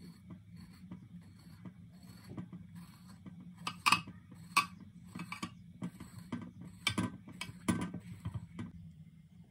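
Kitchen knife stabbing slits into halved eggplants in a glass baking dish, its tip clicking and tapping on the dish and wire rack beneath in an uneven run of sharp taps. The loudest taps come about four and seven seconds in.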